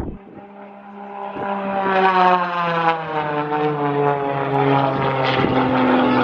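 A propeller airplane flying past, its engine note sliding steadily lower in pitch as it grows louder over the first couple of seconds.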